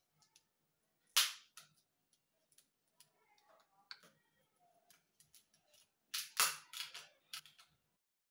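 Hardened peanut-jaggery chikki cracking and snapping apart along its scored lines as a knife pries it loose, with the pieces and blade clicking against a steel plate. There is one loud crack about a second in and a quick run of sharp cracks around six to seven seconds in.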